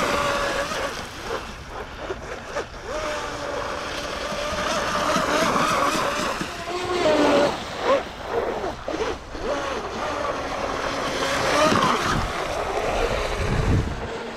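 Miss Geico RC racing boat's motor whining, its pitch rising and falling with the throttle. Water splashes and wind sound close on the microphone, with heavier surges about halfway through and again near the end.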